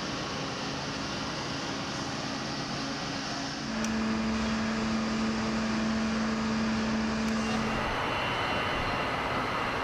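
Aircraft engine running steadily. The sound grows louder a few seconds in and carries a steady low hum for about four seconds.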